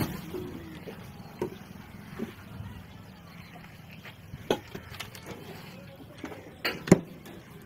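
Concrete paver blocks and plastic paver moulds knocking as they are set down on a table by hand: a handful of sharp clacks a second or two apart, the loudest a quick double knock near the end.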